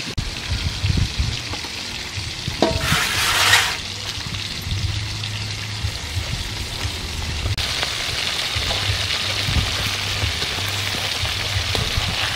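Whole fish deep-frying in a wok of hot oil: a steady sizzle that grows brighter about halfway through. At the start, a few knocks of a cleaver chopping on a wooden board, then a brief loud hiss about three seconds in.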